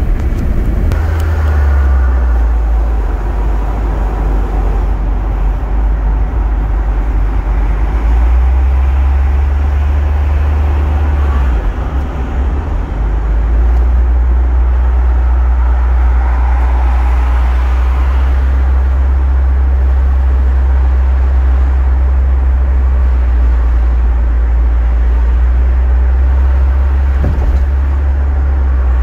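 Inside the cabin of a Volvo 940 turbo on the move: the turbocharged four-cylinder engine and the road make a steady low drone, with tyre and wind noise over it. The drone drops briefly about twelve seconds in, then picks up again.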